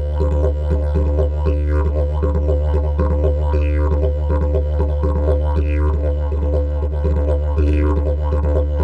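CNC-machined wooden didgeridoo played in one continuous low drone, its overtones sweeping up and down in a recurring rhythm about every second or two.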